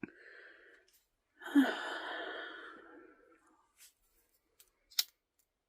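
A person takes a short breath in, then lets out a long breathy exhale that fades over about two seconds, with one sharp click near the end.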